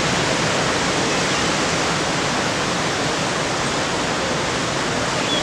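Steady rush of ocean surf breaking and whitewater washing in over a rocky shoreline.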